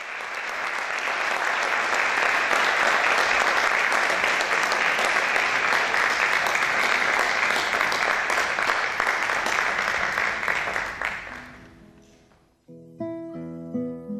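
Audience applause for about twelve seconds, dying away, then the first plucked guitar notes of a choro begin near the end.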